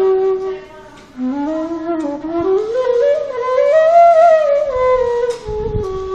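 A flute-like woodwind plays a melody. It holds a note, dips briefly about a second in, then climbs step by step and falls back down to a held note, with some low rumbling near the end.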